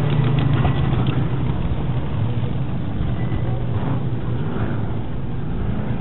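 Several short-course off-road race truck engines running hard together, loudest in the first second as the pack passes, then falling back, with engine notes rising and falling in pitch as the drivers work the throttle around the dirt track.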